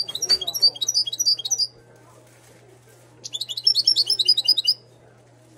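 Moroccan goldfinch singing: two bursts of rapid, high twittering notes, each about a second and a half long, with a pause of about a second and a half between them.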